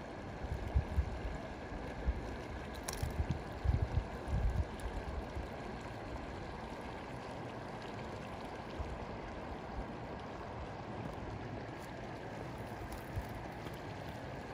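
Shallow river water running steadily over rocks, with a few low bumps in the first five seconds.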